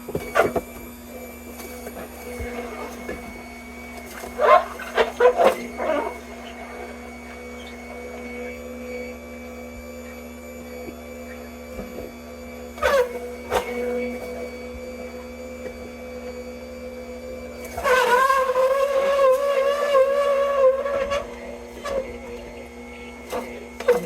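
Electric juicer motor running steadily as apples are fed in, with a few sharp crunching knocks about four to six seconds in and again around thirteen seconds. From about eighteen seconds the motor gets louder with a wavering whine, working hard on the apples.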